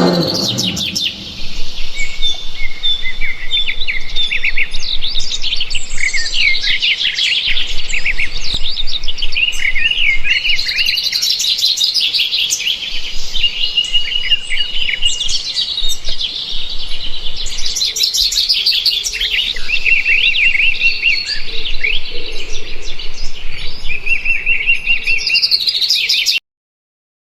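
Birds chirping and singing together, a dense chorus of quick overlapping chirps and trills that cuts off suddenly near the end.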